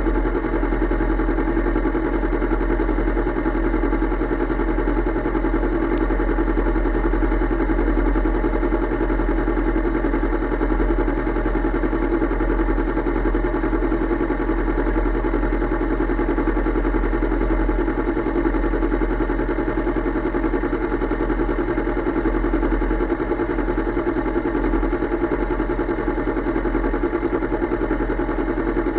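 Motorcycle engine idling steadily at a standstill, an even drone with no revving.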